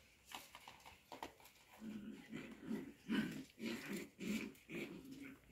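Cocker spaniels growling in play: a run of short, low growls, about two or three a second, starting about two seconds in, after a few faint clicks.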